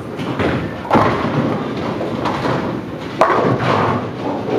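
Tenpin bowling ball rolling down a wooden lane, with a thud about a second in, then crashing into the pins about three seconds in, the pins clattering as nine go down.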